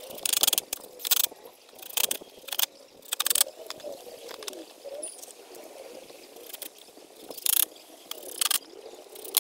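Cordless drill-driver run in short bursts, driving screws to fix one wooden board onto the end of another. There is a cluster of bursts in the first few seconds, a pause, then two more near the end.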